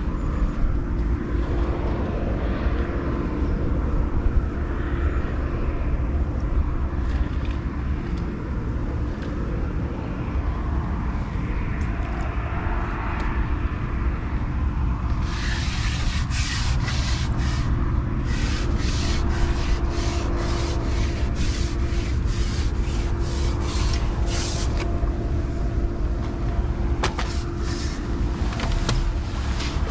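Wind buffeting the camera microphone: a heavy, steady low rumble with a faint steady hum underneath, and a run of sharp crackles from about halfway.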